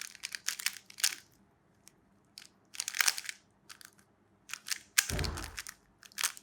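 Plastic Rubik's cube being turned fast during a speedsolve: quick clusters of clicks and rattles with short pauses between them, and a heavier clatter about five seconds in.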